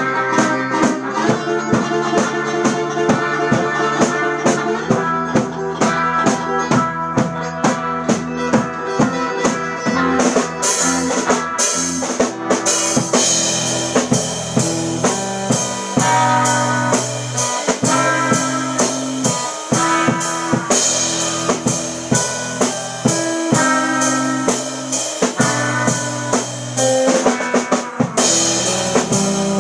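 Instrumental surf rock played live: two electric guitars over a drum kit keeping a steady beat, with bright cymbal crashes twice.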